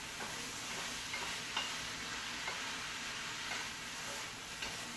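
Beef tibs with onion and tomato sizzling in a frying pan as a utensil stirs them, with a few light clicks of the utensil against the pan about once a second.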